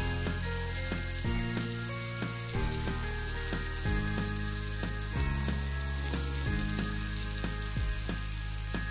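Bitter gourd slices and shrimp frying in oil in a metal pan on low heat, a steady sizzle near the end of cooking. Background music with a repeating chord pattern plays over it.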